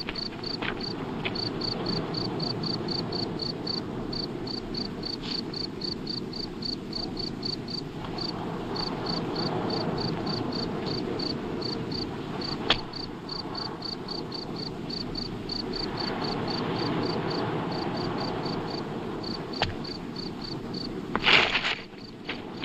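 A cricket chirping steadily, about three high chirps a second, over a steady hiss of outdoor ambience. There is a short burst of noise near the end.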